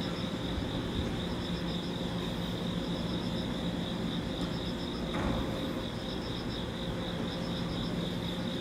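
Insects chirping in a steady, high-pitched chorus with a fast pulsing trill, over a steady low hum. There is a brief swell of noise a little past halfway.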